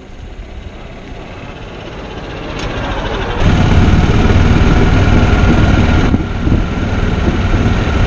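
220-size 5-inch FPV racing quadcopter's brushless motors and propellers spooling up from the ground, with a buzz and whoosh that grows steadily louder. It turns sharply louder about three and a half seconds in as the quad lifts off.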